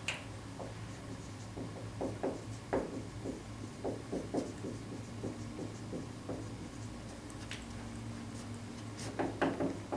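Dry-erase marker writing on a whiteboard: a run of short squeaky strokes as a heading is written.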